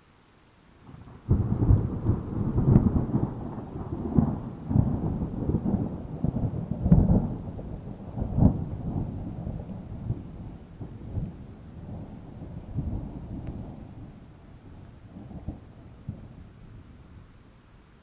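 Thunder: a sudden crack about a second in, then a long rolling rumble with several louder peaks that slowly dies away over about fifteen seconds, under faint steady rain.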